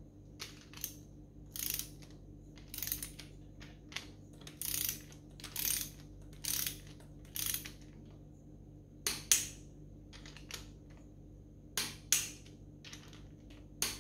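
Ratchet-type torque wrench working the conrod nuts of a Holden 253 V8: a run of short ratcheting strokes about once a second, as the nuts are taken up toward 35 ft-lb. In the second half come a few sharper, louder clicks, some in quick pairs.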